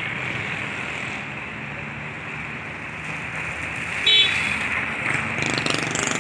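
Steady outdoor traffic and yard noise, with a short, high-pitched vehicle horn toot about four seconds in.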